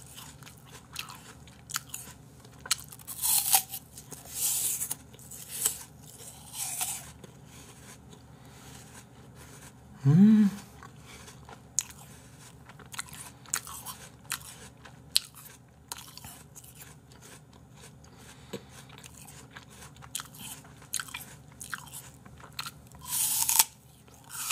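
Crisp apple slices being bitten and chewed close to the microphone: a run of irregular crunches. About ten seconds in, the eater makes one brief rising vocal sound, the loudest moment.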